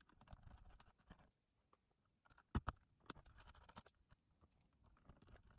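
Small screwdriver backing tiny screws out of a cassette player's circuit board: faint scraping and light clicks, with two sharper clicks about two and a half seconds in and another just after.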